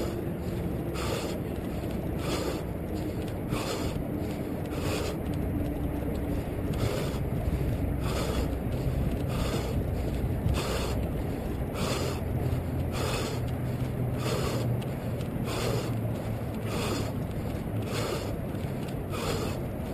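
A runner's rhythmic stride sounds picked up by a camera strapped to his head: a short hiss about one and a half times a second, in step with his running, over a steady low rumble.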